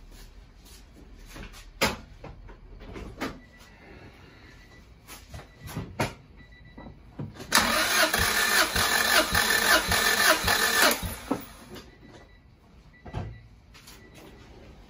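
Honda B18 four-cylinder engine cranked over by its starter for about three seconds without firing, turning it through several compression strokes for a compression test, then stopping. A few clicks and knocks come before it.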